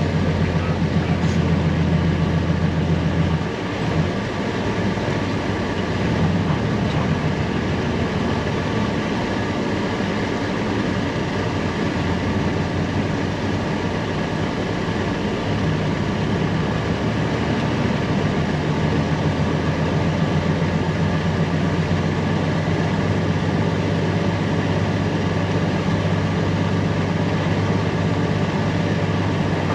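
Semi truck's diesel engine running under way with steady road noise, heard from inside the cab. The engine's low drone eases off about three and a half seconds in and grows strong again past the middle.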